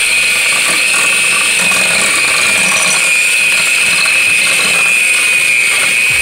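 Small electric hand mixer running steadily with a high whine, its beaters whirling through butter and sugar in a glass bowl as they are creamed together.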